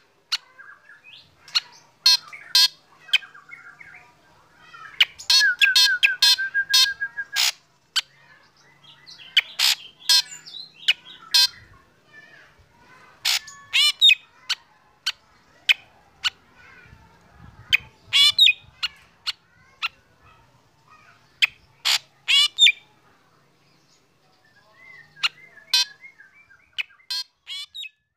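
Black drongo singing: a series of loud, sharp whistled notes and chatter, with a fast trill between about five and seven seconds in.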